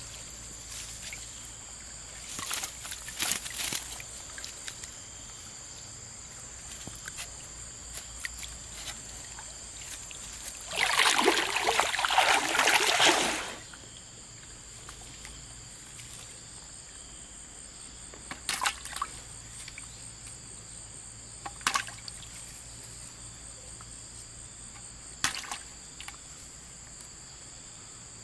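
River water trickling and sloshing, with a loud splashing burst of about two and a half seconds some eleven seconds in and a few short sharp splashes or knocks scattered through.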